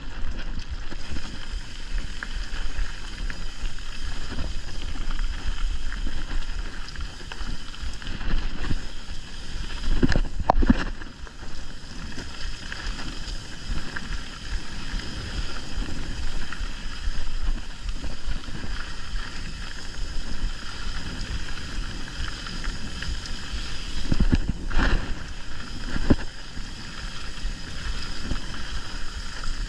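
Mountain bike riding along a dirt trail: a steady rush of wind on the camera's microphone over the tyres rolling on dirt and leaf litter. The bike clatters with sharp knocks over bumps a few times, once about a third of the way through and again near the end.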